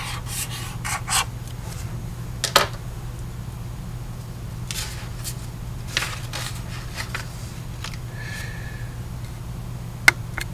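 Pen strokes underlining on paper, heard as several short scratches, with light clicks of the pen and sheet being handled, over a steady low hum.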